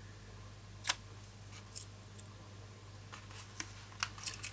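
Hands working a roll of gold-feather decorative tape on a paper planner page, tearing pieces off and pressing them down: a few short, sharp clicks and crackles, the loudest about a second in and several more close together near the end.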